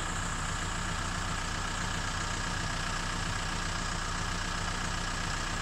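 Safari vehicle's engine idling steadily, an even hum with no change.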